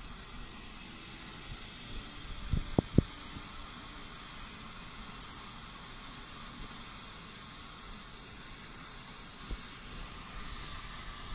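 Dental suction vacuum hissing steadily through the mouthpiece that keeps the tooth dry. A quick cluster of three sharp clicks about three seconds in, and a smaller click later.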